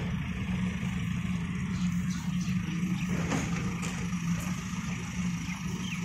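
Diesel engine of a SANY rough-terrain crane running steadily with a low hum as the crane drives over rough dirt ground.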